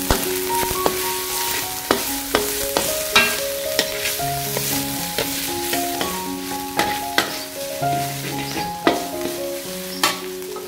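Minced frog stir-fry sizzling in an aluminium wok while a metal spatula scrapes and taps against the pan many times. Soft background music with held, piano-like notes plays underneath.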